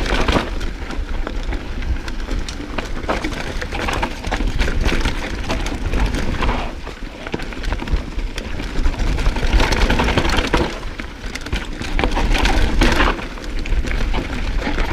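Mountain bike descending a dirt singletrack at speed: tyres crunching over dirt and stones and the bike rattling in many sharp clicks, over a steady low rumble of wind buffeting the action camera's microphone. The noise swells and falls with the terrain.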